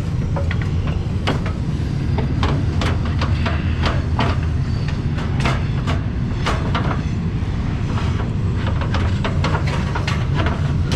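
A train passing, a loud steady low rumble, with many sharp irregular clanks and knocks over it.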